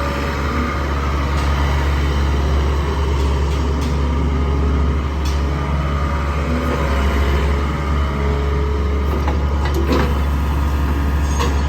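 IHI 55UJ2 mini excavator's four-cylinder Isuzu diesel engine running steadily, with a few short metallic knocks near the end.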